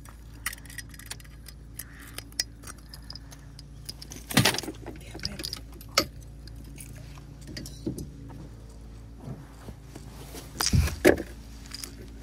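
Metallic clinking and rattling with scattered knocks over a steady low hum; the loudest thumps come about four seconds in and again near the end.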